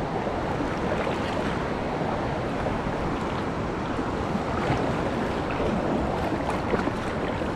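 River water rushing steadily over a drop in the riverbed, an even noise with no break.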